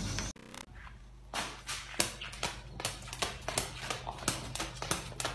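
Light, irregular clicks and taps, roughly two or three a second, over a faint steady low hum, as a blue-and-gold macaw pecks at and handles a feather-wand toy.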